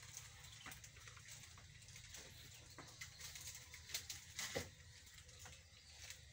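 Faint low hum of corded electric hair clippers running during a haircut, with a few scattered short clicks and taps. The loudest tap comes about four and a half seconds in.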